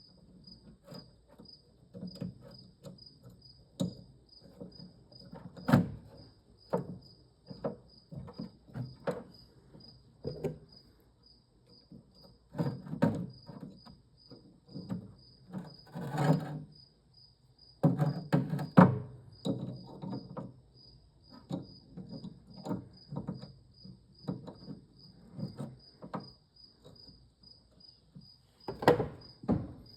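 Small steel ratchet parts being handled and set down on a workbench: irregular clicks, taps and knocks, with a few louder knocks. Behind them a steady high-pitched chirp repeats about twice a second.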